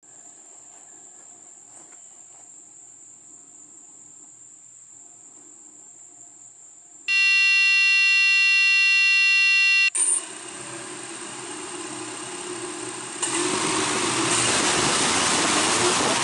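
A loud, steady electronic beep held for about three seconds, starting and stopping sharply, after a stretch of faint high whine. Right after it, a motor-like noise starts up and grows louder about three seconds later.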